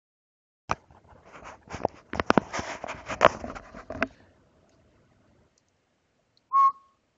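A headset microphone being handled as the headphones are put on and adjusted: close, irregular knocks, scrapes and rustles for about three and a half seconds. Near the end comes one short whistled note.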